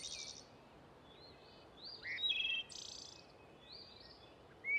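Faint bird calls: short chirps and upward-sliding whistles, with a harsher, rasping call a little after two seconds in and another chirp near the end.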